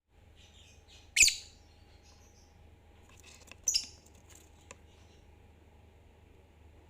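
Lovebirds squawking and chirping: a few soft high chirps, then two short, loud, shrill squawks, about a second in and again near the middle, and a small click.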